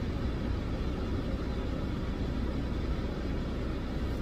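Steady low rumble inside a car's cabin while the car sits stopped with its engine idling.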